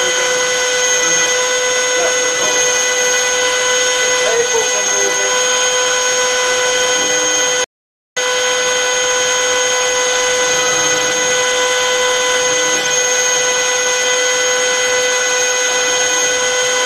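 Boeing 737-400 hydraulic system powered up: a loud, steady pump whine made of several high, even tones over a hiss, as the system drives the ailerons. A brief dropout to silence about eight seconds in.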